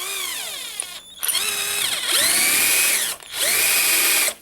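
Electric drill with a small bit run in three short bursts: the first falls in pitch, then two rise to a steady whine, with a brief stop about three seconds in. It is drilling out the staking punch marks that lock the aluminium worm nut of a steering rack.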